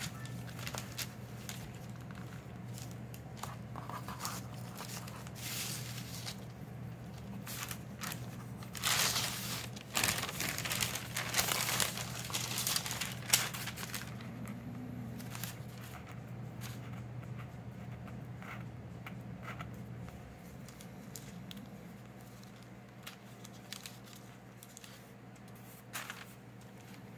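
Thin Bible-paper pages and a protective paper sheet rustling and crinkling as they are handled and smoothed by hand. The rustling comes in irregular bursts, loudest about a third of the way through, over a steady low hum that stops about three-quarters of the way in.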